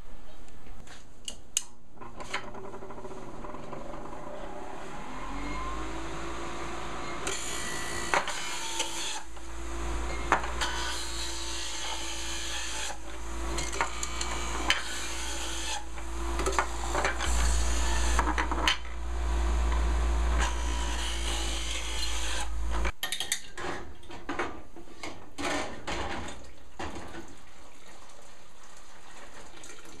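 Electric juicer motor spinning up about two seconds in and running steadily for some twenty seconds while apples are pushed down its chute with a plunger and ground, with knocks over the motor sound. It cuts off suddenly, followed by scattered clicks and clinks.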